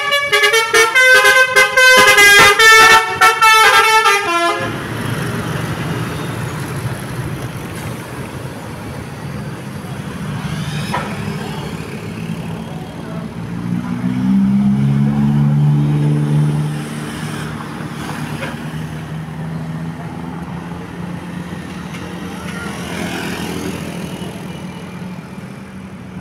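Basuri V3 telolet musical bus horn playing a quick multi-note tune for about four seconds, then cutting off. A heavy vehicle's engine and road noise follow, growing louder about ten seconds later and then fading as it passes.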